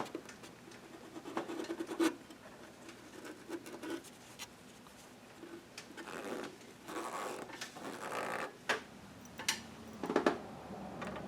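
Light scraping, rustling and scattered clicks of hand work, fitting a new spark plug into the engine. The clicks come at irregular moments, and the scraping is longest in the second half.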